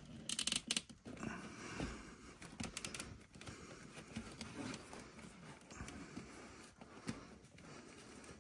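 Hands fitting a plastic armor piece onto an action figure, pressing its pegs into holes: faint scattered clicks and rubbing of plastic, with a quick run of clicks about half a second in.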